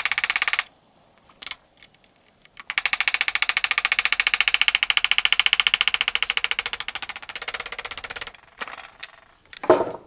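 Hand-held power tool running with a rapid, even pulsing, in a short burst at the start and then a longer run of about five and a half seconds on a stubborn part of a trailer jockey wheel. Near the end a single sharp knock.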